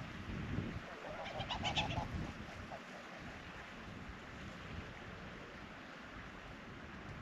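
River otter calling: a quick run of short, high chirps lasting about a second, starting about a second in.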